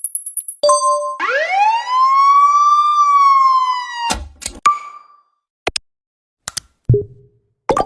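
A string of short sound effects: a brief high buzz, a short two-note beep, then a long siren-like tone that slides up in pitch and holds for about three seconds. Several sharp clicks, a short beep and a low thud follow.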